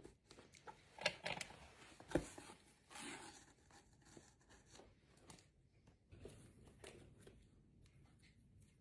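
A parcel being unpacked by hand: packaging rustling, with scattered sharp clicks and knocks. The loudest knocks come about one and two seconds in.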